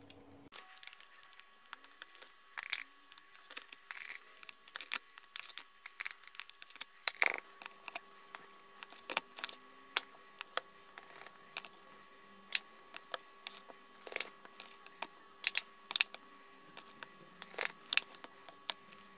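Thin plastic water bottle crackling and clicking in the hands as it is squeezed and released to suck up egg yolks and let them out again. Irregular sharp crinkles and clicks.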